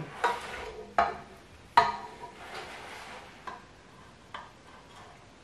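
Serving spoon knocking and scraping against the inside of a cooking pot while sauce is scooped out. There are a few sharp knocks, the loudest about two seconds in, then fainter and sparser ones.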